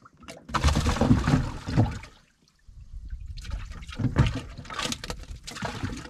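Water splashing and sloshing in two spells, the first about a second and a half long and the second about three seconds, with a gap between.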